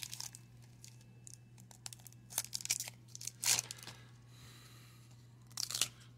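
Foil wrapper of a Pinnacle baseball-card pack and the cards inside being handled: a few short tearing, crinkling rustles. A steady low hum runs underneath.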